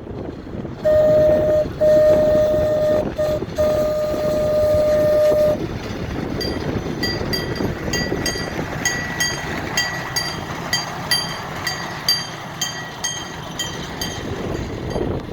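Locomotive No. 99's single-note horn sounds the grade-crossing signal: long, long, short, long. Its bell then rings steadily about twice a second, with wind rumbling across the microphone throughout.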